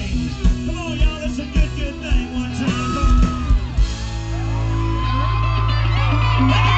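Live country band playing loudly through the PA, drums beating, then about four seconds in the band holds a long final chord. Crowd whoops and yells over it.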